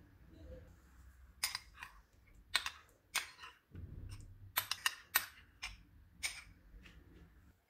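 Metal spoon clinking against a small glass bowl while scooping out soft ghee: a string of sharp clicks, with several in quick succession a little past the middle.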